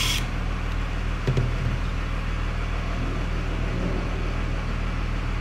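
A cordless drill's high whir cuts off right at the start, leaving a steady low mechanical hum with hiss and one short knock about a second in.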